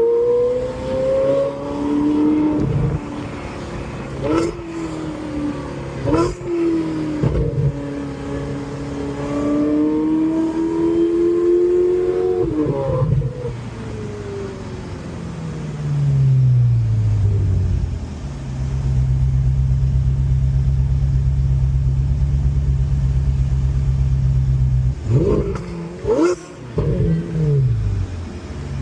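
Ferrari 458 Italia's naturally aspirated 4.5-litre V8 being revved, its pitch wavering up and down for the first dozen seconds, then dropping back to a steady idle. A few short blips of the throttle come near the end.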